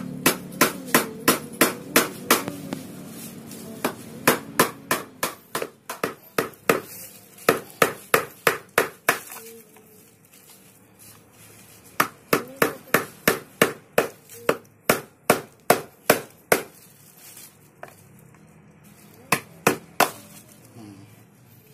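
Hammer striking a screwdriver driven like a chisel into the cells of an old car battery, to break loose the lead plates. The knocks come in quick runs of about three a second, with pauses of a couple of seconds between runs.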